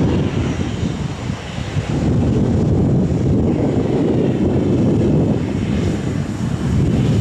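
Airliner jet engines, a steady low rumble that is a little quieter in the first couple of seconds.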